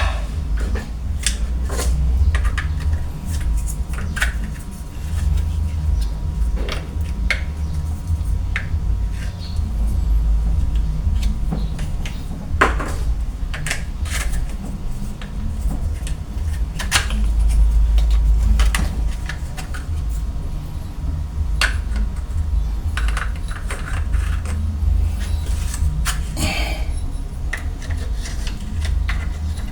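Scattered metallic clicks, clinks and knocks of hand tools and faucet fittings being worked under a kitchen sink, over a steady low rumble.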